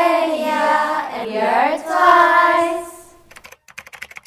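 A group of young women call out a drawn-out, sing-song greeting in unison, "Namaste, India," in two long phrases. Near the end come a quick run of typewriter-style keystroke clicks, a text-typing sound effect.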